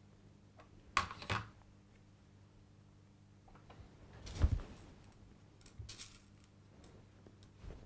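Hands handling split-shot pots and tackle on a pole rig-tying board: two sharp clicks about a second in, a louder knock about four and a half seconds in, then a few faint ticks.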